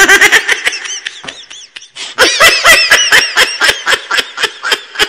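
A baby laughing in quick, high-pitched bursts, in two bouts with a brief pause about two seconds in.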